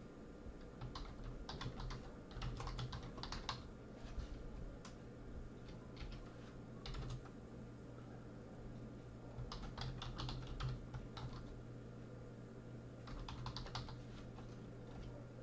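Typing on a computer keyboard: about four bursts of rapid key clicks with pauses between, over a low steady hum.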